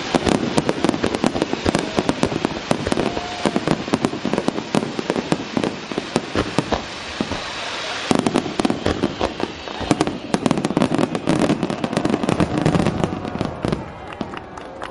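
Aerial fireworks display: a dense barrage of shells going off, many sharp bangs overlapping in quick succession, thinning out a little near the end.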